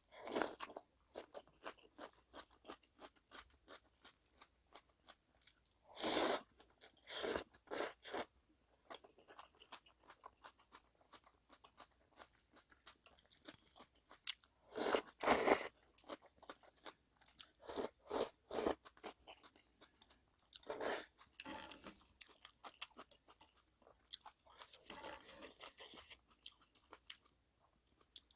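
Close-miked mukbang eating sounds: steady wet chewing with many crisp crunches, typical of fresh geotjeori cabbage kimchi and seafood kalguksu. Louder bites or slurps come every few seconds.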